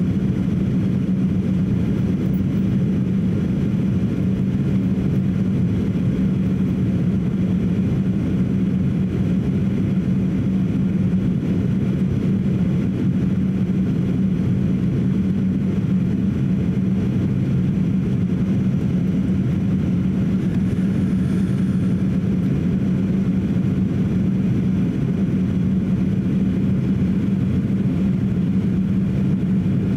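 Boeing 737-800 in flight heard from inside the passenger cabin: its CFM56 turbofan engines and airflow make a steady drone with a strong low hum.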